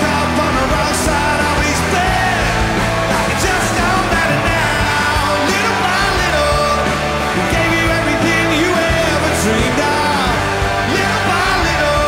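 Rock band playing, with electric guitar, drums and a male voice singing the chorus of the song.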